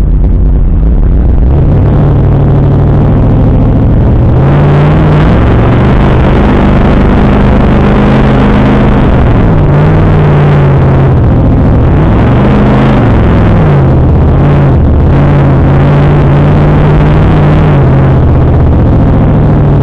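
Off-road vehicle's engine heard from inside the cabin, working hard as it drives up a sand dune. The revs rise about four seconds in, drop and pick up again twice partway through, then hold steady.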